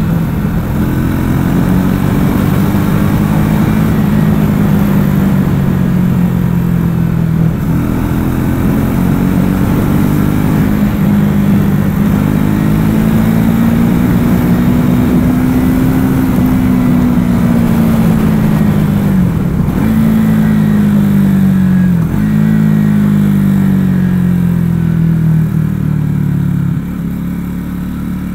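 Triumph Speed 400's single-cylinder engine and exhaust under way, the note rising and falling with the throttle and breaking off sharply a few times. The sound drops a little in level near the end.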